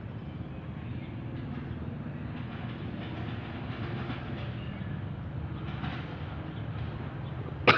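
Steady low drone of a D11H diesel-hydraulic locomotive working an approaching train, with a sharp knock close to the end.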